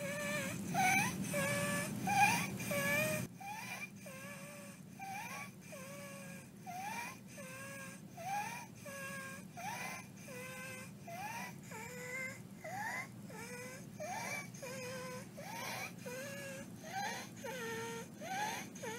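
Simulated infant's distressed breathing and whimpering: a short, high-pitched squeak that rises sharply on each breath, over and over in a quick rhythm. This is the high-pitched inspiratory stridor of upper airway obstruction, with croup the likely cause.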